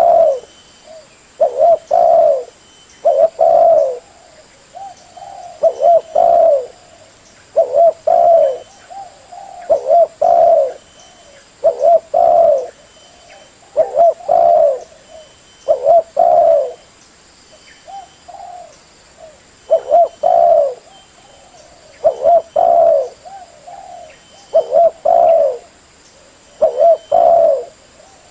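Spotted dove cooing: short, throaty coo phrases repeating about every two seconds.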